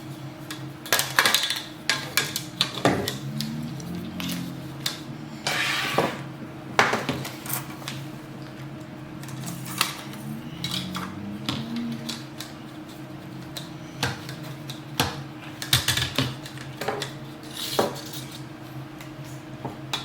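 Irregular clattering, clicks and knocks of hard parts being handled and fitted together: metal clamps and a saddle threshold on PVC pipe while a homemade bandit-sign stapler is assembled. A steady low hum runs underneath.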